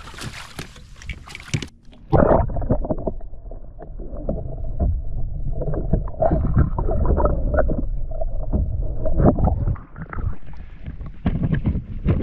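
Splashing and sharp handling noises as a smallmouth bass is released over a kayak's side. About two seconds in, the sound turns muffled and low: water sloshing around a camera held under the surface.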